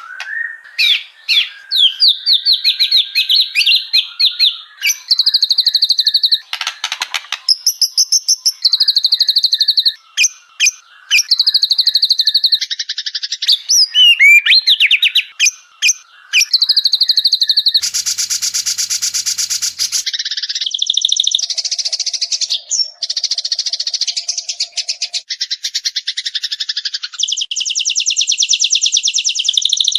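White-rumped shama song: fast chattering phrases and whistled trills following one another with short gaps, with a harsh buzzy rattle about 18 seconds in and long rapid trills after it.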